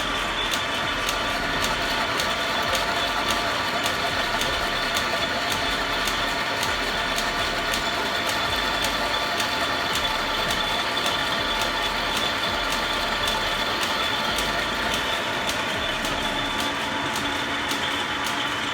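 1928 Ehrlich flat-belt-driven metal-cutting lathe running steadily under power, its gears whining. A regular tick sounds about four times a second.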